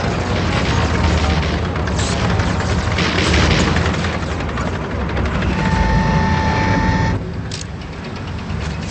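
Movie battle soundtrack: bursts of gunfire and booming explosions over a heavy low rumble and music. A steady high electronic tone sounds for about a second and a half past the middle.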